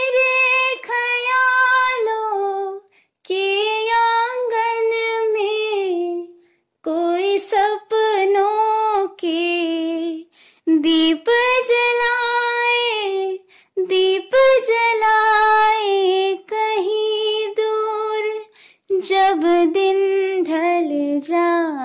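A high solo female voice singing unaccompanied, in phrases of a few seconds with held, wavering and ornamented notes, broken by short silences.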